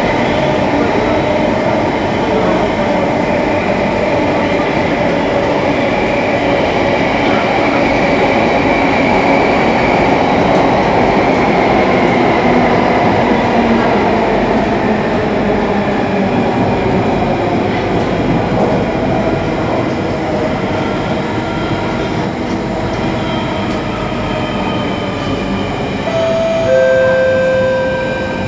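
Singapore MRT train running through a tunnel, heard from inside the carriage: a steady rumble of wheels and motors, its pitch dropping as the train slows into a station. Near the end the onboard announcement chime sounds two descending notes.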